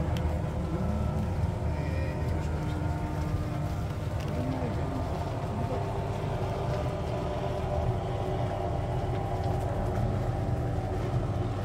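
Wooden water-buffalo cart rolling along a sand-and-gravel lane: a steady low rumble of its wheels and creaking frame, with faint voices of passengers.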